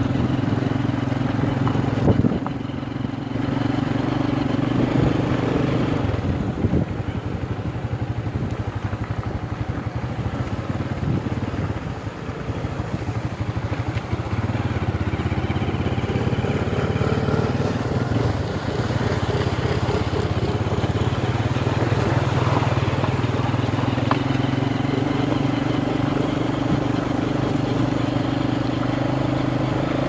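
Small motor scooter engine running while riding over a gravel riverbed, a steady engine note that eases off for several seconds in the middle and picks up again.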